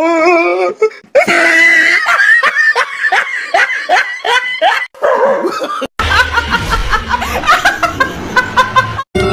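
Hearty laughter in quick repeated bursts, broken by a sudden cut about six seconds in. It is followed by a young woman laughing loudly in bursts over faint background music.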